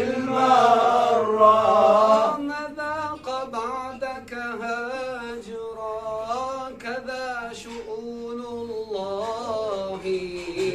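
Male voices chanting a Rifa'i Sufi devotional hymn, holding long sung notes. After about two seconds the chant moves into a wavering, ornamented melodic line.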